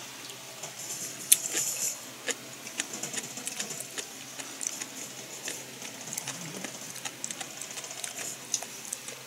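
A person chewing crunchy food close to the microphone: irregular crisp crunches and mouth clicks, the loudest about a second in.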